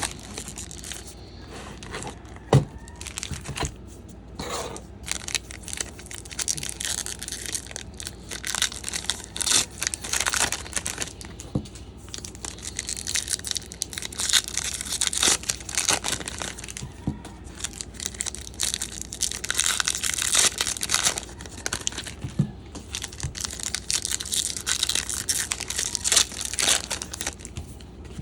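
Plastic wrapping on a hobby box of trading cards crinkling and tearing as it is opened by hand, in irregular bursts, with one sharp knock early on.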